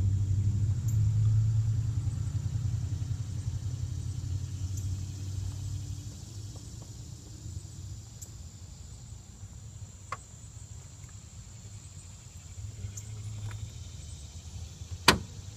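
Low rumble of a vehicle engine running nearby, fading away over the first several seconds. A few faint clicks follow, then one sharp click near the end.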